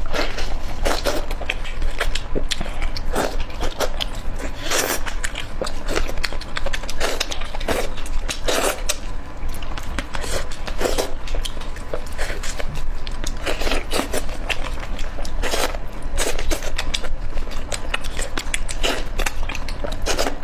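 Close-miked eating: a person biting and chewing food, with crisp crunches coming about once a second, irregularly.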